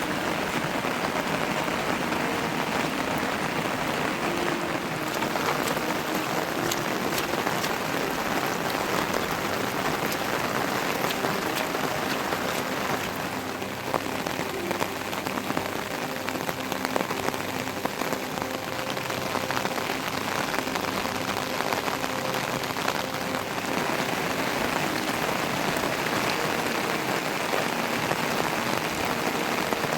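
Heavy monsoon rain falling steadily, a dense patter of drops.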